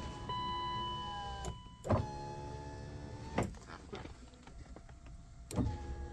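1996 BMW Z3 power window motor whining steadily as it drives the glass, worked by a newly fitted center-console window switch that is working. The run is broken by sharp clunks a few times, where the glass stops or changes direction.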